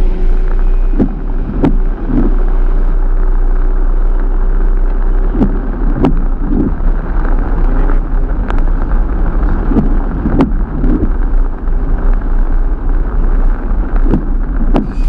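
Heavy rain on a car, heard from inside the cabin as the car rolls slowly: a steady, muffled rain noise over a low rumble, broken by a dozen or so irregular thuds.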